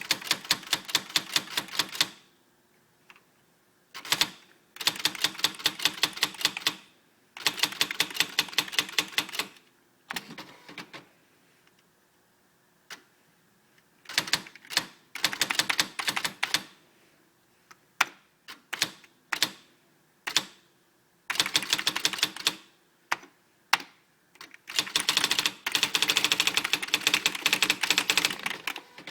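Swintec 7000 electronic typewriter printing in quick runs of evenly spaced strikes, about ten a second, each run lasting a couple of seconds with short pauses between. A few single strikes come in the middle, and a longer, denser run comes near the end.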